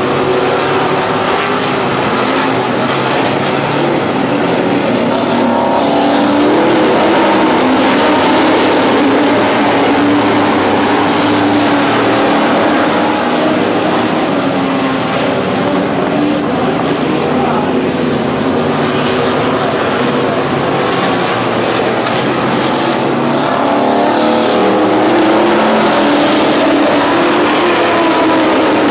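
A pack of dirt-track modified race cars running around the oval, their engines making a loud, steady, overlapping drone.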